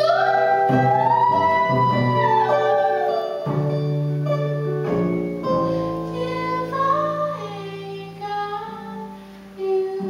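A woman singing a slow R&B ballad, her voice gliding through long held notes, over archtop electric guitar and upright double bass. The music grows quieter near the end.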